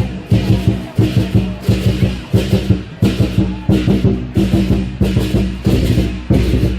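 Percussion-led music: loud drum and wood-block-like strikes in a fast, steady rhythm of about three a second, over a sustained low pitched layer.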